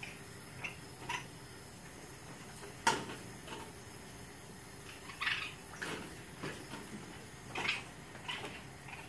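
Baby raccoons splashing and paddling in shallow water in a plastic kiddie pool: a string of short, irregular splashes and sloshes, with a sharp knock about three seconds in.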